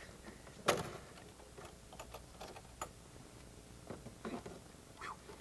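A single sharp slam about a second in, the peephole shutter of the stage door snapping shut, followed by scattered light ticks and clicks.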